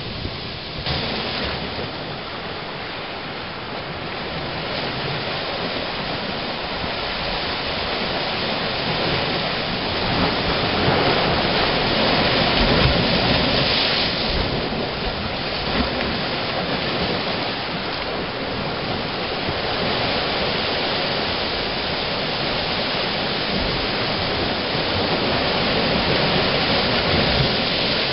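Ocean waves surging into a seashore blowhole in a'a lava, with a continuous rushing of water that swells to its loudest about halfway through.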